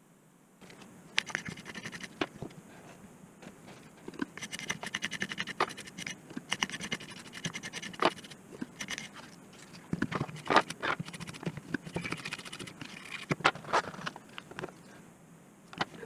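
Toothbrush bristles scrubbing a washing-machine control circuit board in quick, irregular back-and-forth strokes, cleaning the board. The strokes come in runs with short pauses and stop just before the end.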